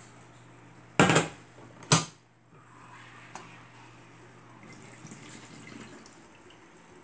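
Metal ladle moved in a pot of coconut milk and water, giving two loud knocks about a second apart, then liquid moving quietly against the pot. A faint steady low hum stops about a second before the end.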